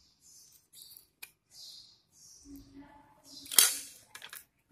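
Plastic clicks and knocks as a DT830D digital multimeter and its test lead are handled, between soft rustles. A sharp, loud click comes about three and a half seconds in, followed by a few lighter clicks.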